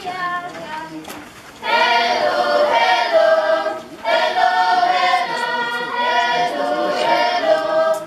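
A group of students singing together as they march in, a quieter line at first, then two long, loud sung phrases with a short break between them.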